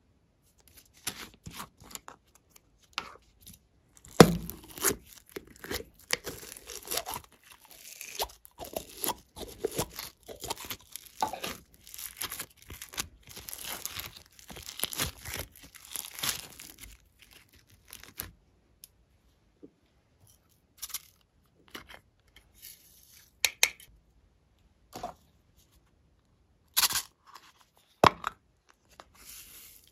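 Clear glossy slime full of small foam beads being squeezed and stretched by hand, with dense crackling and popping. About eighteen seconds in this thins out to scattered separate clicks and pops.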